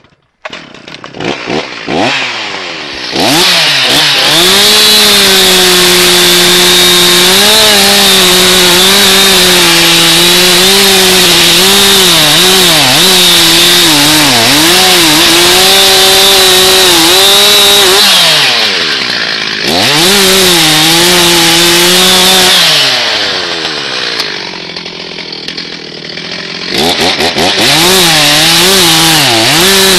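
Stihl MS361 chainsaw, a 59 cc two-stroke, revving up to full throttle and cutting a felled fir trunk loose from its stump, its pitch dipping again and again as the chain bites into the wood. The engine drops back off the throttle twice between cuts, briefly past halfway and for a few seconds near the end, then goes back to full speed.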